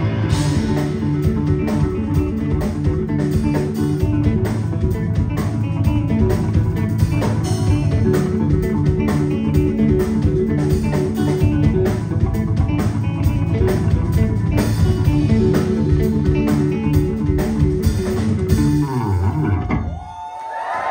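Live instrumental rock band of electric guitar, bass guitar and drum kit playing a busy, rhythmic passage. The song ends with descending notes about nineteen seconds in, and the crowd starts cheering and whistling just after.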